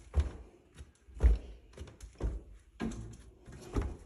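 Footsteps of a woman in flip-flops walking slowly down carpeted stairs: a dull thud about once a second, with lighter steps between.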